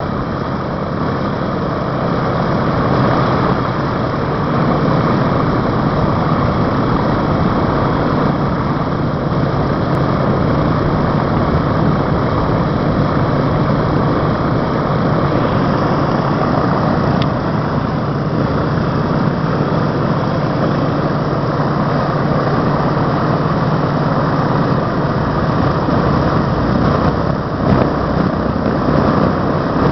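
Wright R-1820 Cyclone nine-cylinder radial engines of a B-17G Flying Fortress running steadily at idle, a loud, constant drone with a deep hum.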